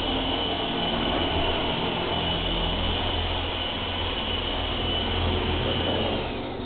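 Twister V2 radio-controlled helicopter hovering: a steady high motor whine over a buzzing rotor. The whine winds down near the end as the helicopter comes down onto the floor.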